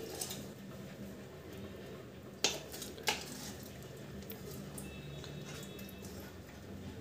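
Metal spoon clinking against a metal cooking pot twice, about a second apart, with a few softer taps, as chicken curry is spooned onto a layer of rice.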